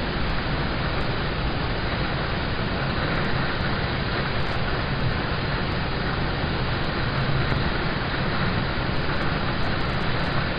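Steady rain falling on a car's roof and windows, heard from inside the cabin as an even, unbroken hiss.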